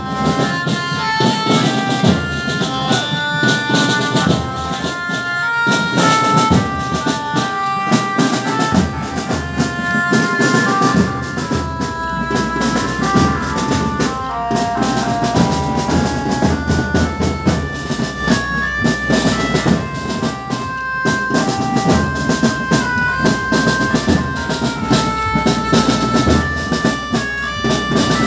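A girls' marching drum band beating drums with sticks in a steady, loud rhythm, with a melody of held notes over it. A deep bass comes in about twelve seconds in.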